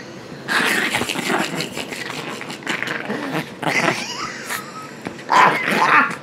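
Chihuahua growling in rough play-fighting, in a run of irregular bursts.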